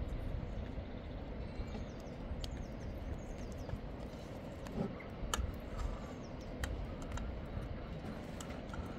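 Outdoor ambience: a steady low rumble, with a few sharp clicks, the loudest a little past halfway, and faint high chirps near the start.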